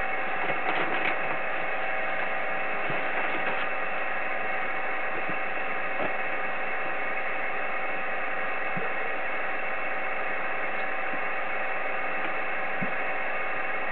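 Steady static hiss from an Icom IC-7300 transceiver's speaker, receiving the 10-metre band in upper sideband with nobody transmitting, with faint steady tones running under the noise.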